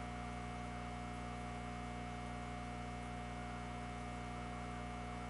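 Steady electrical hum with a thin steady tone above it and a faint hiss, unchanging throughout.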